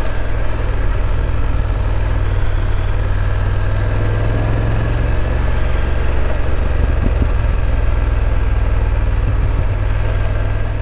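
BMW F850 GS parallel-twin motorcycle engine running steadily while the bike is ridden, with a heavy, even low rumble.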